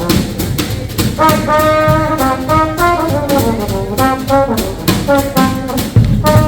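Live hot swing jazz band playing an instrumental break: a brass horn solo of held and moving notes over a steady rhythm-section beat.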